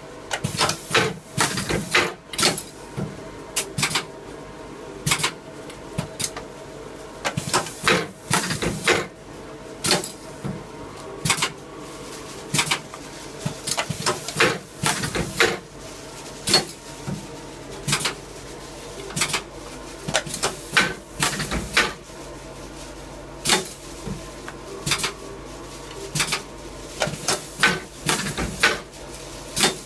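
Rilecart R500 wire calendar-binding machine running, a steady hum under irregular clusters of sharp mechanical clacks and knocks as it binds calendars with wire from its spool.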